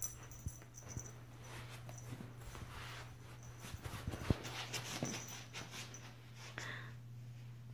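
Soft scuffling, rustling and small knocks of a kitten pouncing on and wrestling a beaded feather wand toy on carpet, with a sharp knock a little over four seconds in, over a low steady hum.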